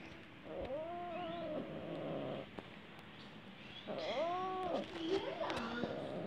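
Domestic cats mating, with one cat yowling: a drawn-out, wavering yowl about half a second in, lasting about a second, then a louder and longer one about four seconds in.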